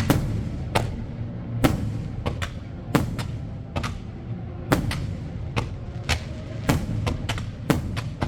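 Fireworks going off in quick succession: sharp bangs, roughly two a second and irregularly spaced, over a continuous low rumble.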